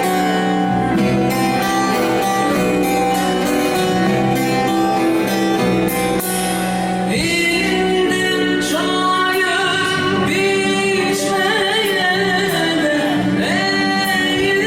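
Turkish folk song (türkü) with plucked-string accompaniment: an instrumental passage, then a woman's singing voice enters about halfway through over the continuing strings.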